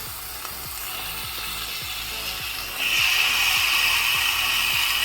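Chicken pieces sizzling in hot oil and spice masala in a cooking pot. The sizzle jumps sharply louder about three seconds in as the chicken goes into the hot masala.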